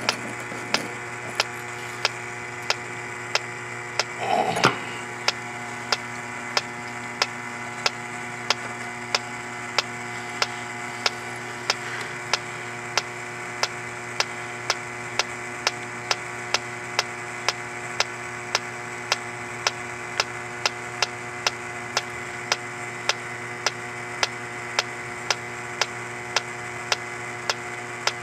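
H10 electronic refrigerant leak detector ticking at a steady, even pace of about one and a half ticks a second over a steady hum. The tick rate never speeds up and it never sounds its alarm: no leak is found at the repaired joint. A brief louder noise comes about four and a half seconds in.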